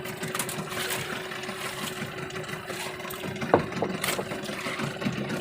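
A motor running steadily aboard a fishing boat, with a thin even hum, and one sharp knock about three and a half seconds in.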